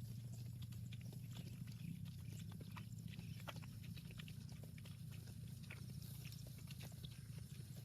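Faint scattered clicks and knocks from cattle moving about, over a steady low hum; no mooing.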